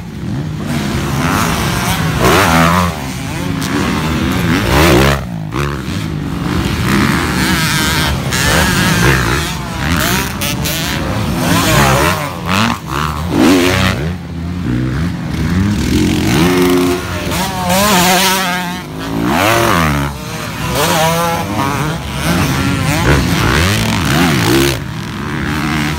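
Motocross dirt bike engines revving hard and easing off over and over, their pitch rising and falling as the bikes ride the dirt track and take a jump.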